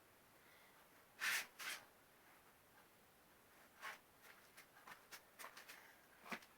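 Bedding and fabric rustling as it is handled and smoothed: two louder rustles about a second in, another near four seconds, then a string of quick, light rustles.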